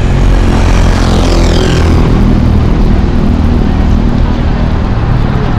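City street traffic: a steady low engine rumble, with a vehicle sweeping past between one and two seconds in.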